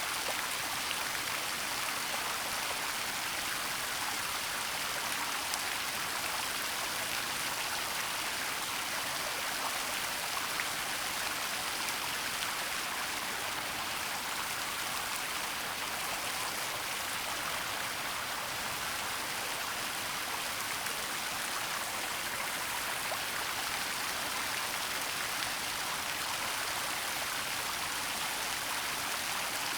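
Waterfall and running stream water rushing steadily, a constant hiss of falling and splashing water.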